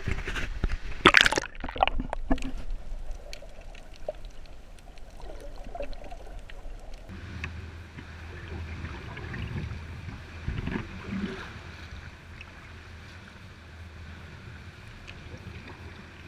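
Water sloshing and gurgling around a kayak's hull and paddle as it is paddled through a sea cave, with a few sharp knocks in the first two seconds.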